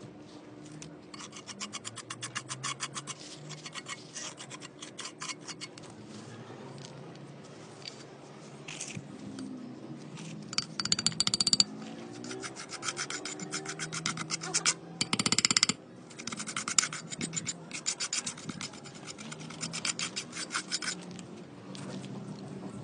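Bursts of rapid hand scraping or rasping strokes, several a second, worked against a roof tile during its repair. A louder unbroken scrape comes about two-thirds of the way through, and there are short pauses between the bursts.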